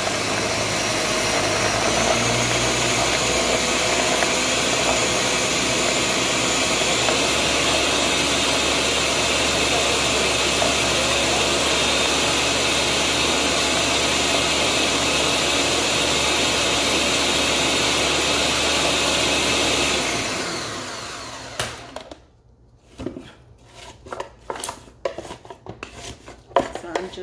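Ninja blender motor running steadily at speed, chopping kale with a little water, then spinning down and stopping about twenty seconds in. After that, a scatter of light knocks and taps as a wooden stick pushes the greens down inside the blender jar.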